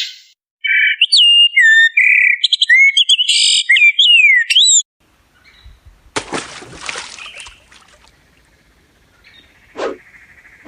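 Songbird calling: a fast run of loud, clear whistled notes that slide up and down in pitch, cutting off abruptly about halfway through. Then comes a short burst of rustling noise, faint chirps and a single knock near the end.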